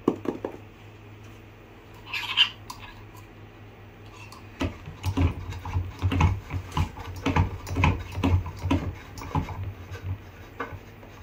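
Irregular clicking and knocking of hard parts being handled as a boom-stand microscope's metal pillar and clamp are fitted onto its base, dense from about four seconds in. A few knocks at the start and a short scraping rustle about two seconds in.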